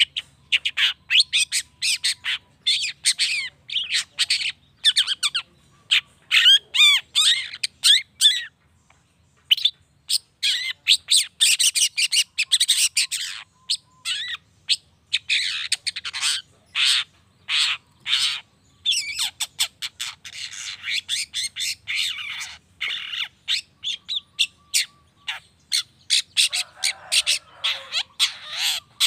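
Long-tailed shrike singing a fast, varied song of short chattering notes and rapid warbling trills, with a short pause about a third of the way through.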